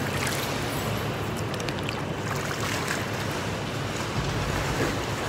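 Pool water splashing and sloshing as a swimmer swims down the lane, over the steady background rush of an indoor pool hall.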